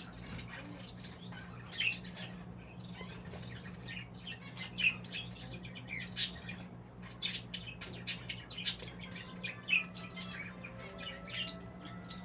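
Young English budgerigars chirping and chattering, a steady stream of short, irregular chirps.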